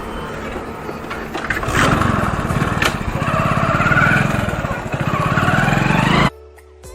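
KTM RC 200's single-cylinder engine starting about two seconds in and running, its revs rising and falling. It cuts off suddenly near the end.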